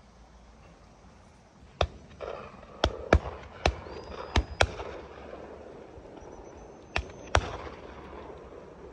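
Shotgun shots from the guns on a driven shoot: eight sharp bangs over about six seconds, several fired in quick pairs, as from double-barrelled guns.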